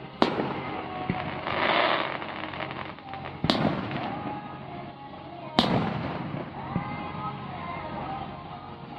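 Aerial fireworks shells bursting: three sharp booms with echoing tails a couple of seconds apart, and a stretch of hiss shortly after the first.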